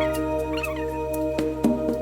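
Background music with sustained notes changing every second or so, and a short warbling high figure about half a second in.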